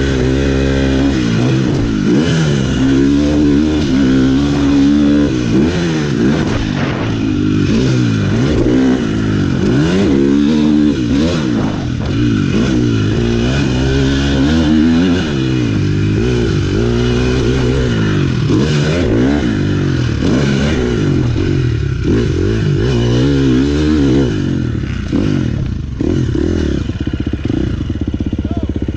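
Dirt bike engine being ridden hard, its pitch rising and falling over and over as the rider revs through the gears and rolls off for turns, with short knocks from the bike over rough ground.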